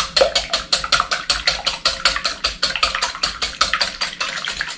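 Wire whisk beating egg whites in a bowl by hand: a fast, even run of clicking strokes, about six or seven a second, as the whites are whipped toward a stiff white foam.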